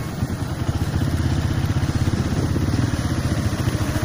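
Motorcycle engine running steadily while riding, heard from the rider's seat as a fast, even low pulsing.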